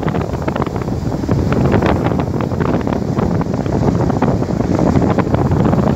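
Strong wind buffeting the microphone with a constant rumble, over the wash of Atlantic surf.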